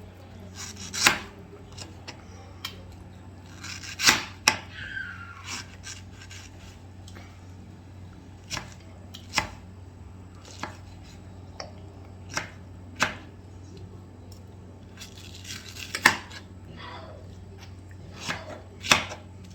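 Kitchen knife cutting mango into cubes on a cutting board: about a dozen sharp knocks at irregular intervals, some close together and others several seconds apart, over a low steady hum.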